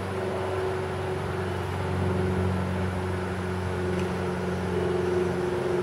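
A steady, low machine hum with several held tones, running without change.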